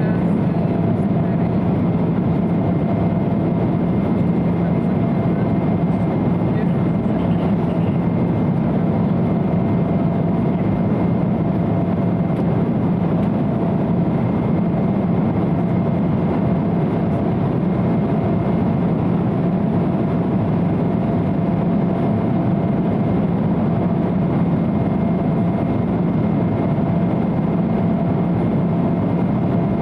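Steady engine drone and rushing air inside the passenger cabin of an Embraer 170 airliner in flight, with a low hum and a fainter higher whine held level throughout.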